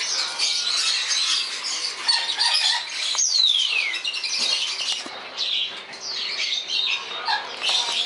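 Many caged pet birds, parrots among them, chirping and squawking together without a break, with one clear whistle falling in pitch for almost a second, about three seconds in.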